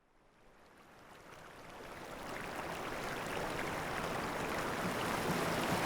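Steady rushing of water, fading in from silence and growing louder over the first few seconds.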